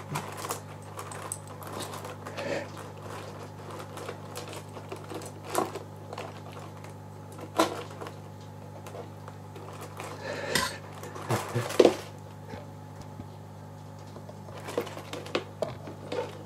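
Metal tweezers clicking and tapping against a Geograpsus crinipes land crab's claws and the coral rubble as the crab grabs at them. The clicks come a second or more apart, the loudest pair a little past the middle, over a steady low hum.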